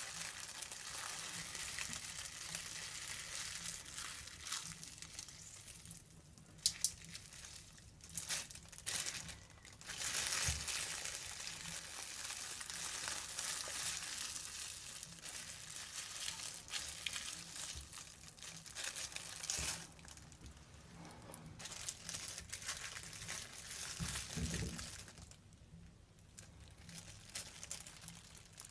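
Thin clear plastic shower cap scrunched and rubbed between the fingers: a continuous crisp crinkling and crunching that eases off briefly a few times.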